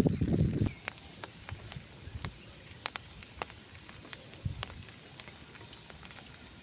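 Wind buffeting the microphone with a low rumble that stops under a second in. After it, a quiet outdoor background: sparse faint ticks over a thin, high, steady tone.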